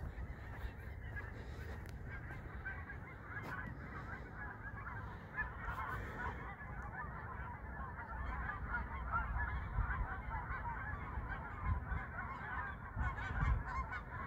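A flock of geese honking continuously, many calls overlapping, growing busier partway through. The geese are calling in alarm as a dog chases them.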